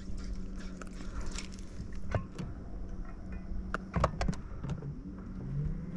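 Electric trolling motor humming steadily, with scattered clicks and knocks from handling in the boat, a small cluster about two-thirds of the way through.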